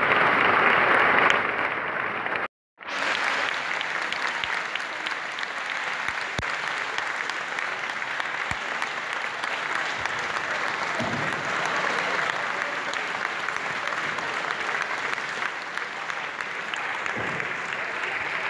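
Theatre audience applauding steadily, a dense even clapping that is loudest in the first second or so and cuts out briefly about two and a half seconds in before carrying on.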